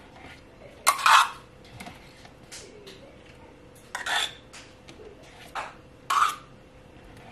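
Metal spoon scooping yogurt into a stainless-steel measuring cup, clinking and scraping against the metal several times. The loudest clinks come about a second in and again around four and six seconds.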